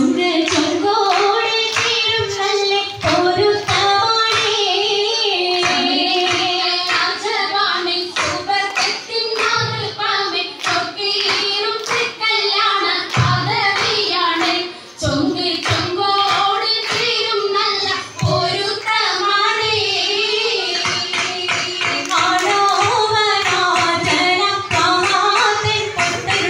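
Oppana song: voices singing a continuous melody over rhythmic hand-clapping by the dancers.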